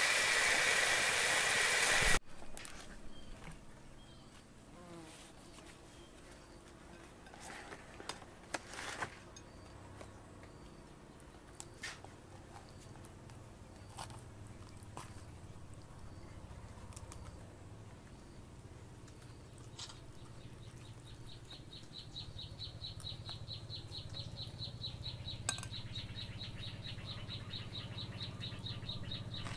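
A loud steady hiss that cuts off about two seconds in, followed by scattered light clicks of a spoon against a plate as food is eaten. From about two-thirds of the way in, a high, rapidly pulsing trill runs on steadily.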